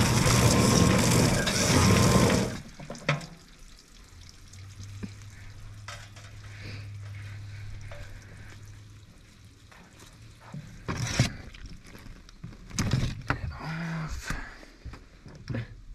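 Water running hard, shut off abruptly about two and a half seconds in. After that, faint low hum and a few sharp light knocks.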